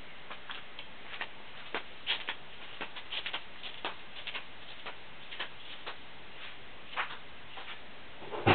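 Footsteps in flip-flops on a concrete floor: light, irregular slaps and clicks over a steady hiss, with no engine running.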